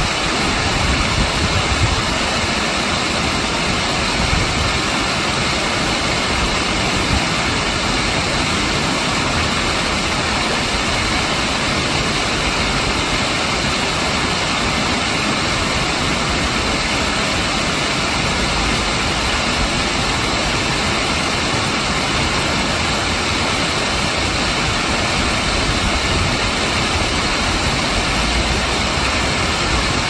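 Stream water pouring over a low concrete weir: a steady, loud rush of falling and churning white water.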